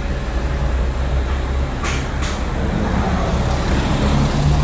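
A motor vehicle engine idling: a steady low rumble with a faint hum, and two short hisses about two seconds in.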